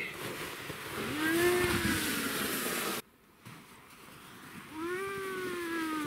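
Inflatable snow tube sliding down a snow slope with a hissing scrape over the snow, while the rider gives long wordless whoops whose pitch rises briefly and then falls slowly. The sound breaks off suddenly about halfway through, and a second, longer whoop follows as the tube slides on.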